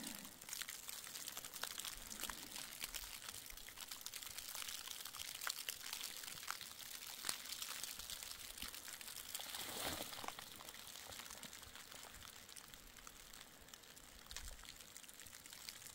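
Faint, steady hiss of heavy wet snowfall, with many small ticks of flakes landing.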